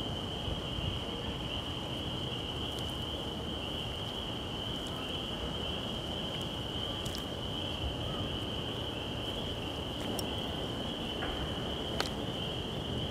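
A steady, high-pitched insect drone over low outdoor background noise, with a few faint ticks.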